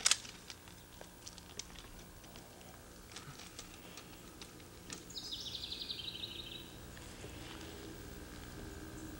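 Quiet outdoor background with a sharp click at the start and a few light clicks, then a bird's quick descending trill about five seconds in. A sharp crack of a BB gun firing comes right at the end.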